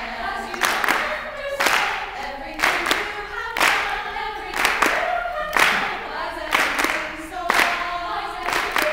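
All-female a cappella group singing in harmony, a soloist's voice over the backing parts, with a sharp percussive beat about once a second.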